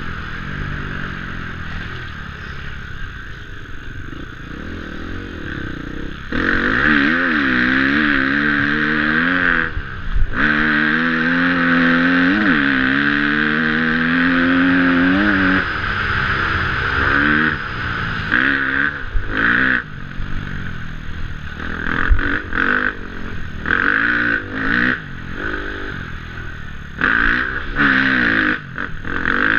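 KTM 250 four-stroke single-cylinder dirt bike engine under way off-road, its revs rising and falling again and again, with short drops as the throttle is shut. It runs quieter for the first six seconds or so, then louder, with a rattle of the bike over rough ground.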